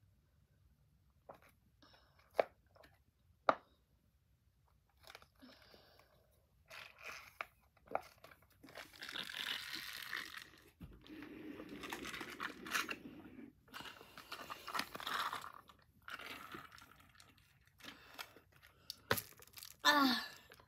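Close-up chewing and crunching of a chocolate bar, with its wrapper crinkling, in a small room. A few sharp clicks come in the first few seconds, and a short vocal sound comes just before the end.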